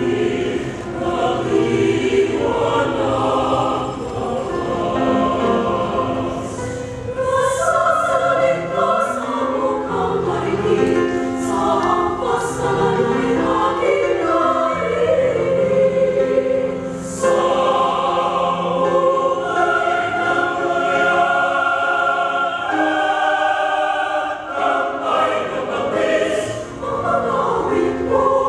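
Large mixed choir of men's and women's voices singing a choral song in parts, with crisp sung 's' consonants coming through together.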